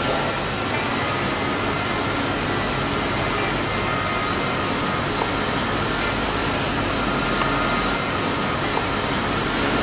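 WLtoys V929 Beetle toy quadcopter's small electric motors and propellers whirring steadily: an even hiss with faint steady whines in it.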